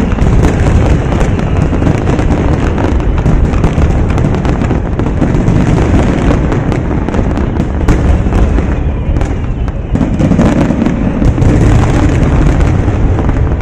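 Aerial firework shells bursting in a dense, rapid barrage of booms and crackles, with a brief lull about nine seconds in before the booms pick up again.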